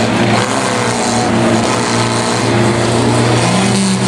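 Several banger-racing cars' engines running and revving together, a loud, continuous mix of engine notes rising and falling in pitch.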